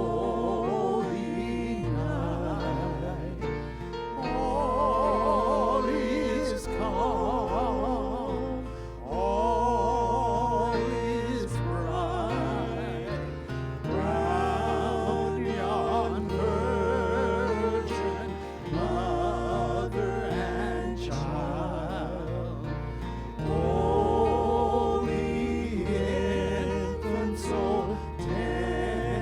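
Worship music: voices holding long notes with vibrato over steady held bass notes.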